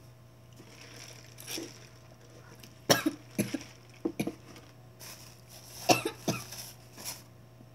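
A girl coughing: several short, sharp coughs in two bouts, the second bout about three seconds after the first.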